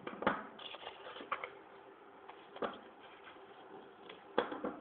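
A sheet of A4 paper rustling and crinkling in a few short, scattered bursts as it is folded and creased by hand.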